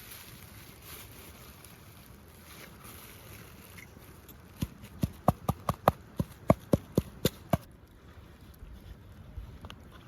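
A quick run of about a dozen sharp knocks, around four a second, starting about halfway through and stopping after about three seconds, over faint outdoor background noise.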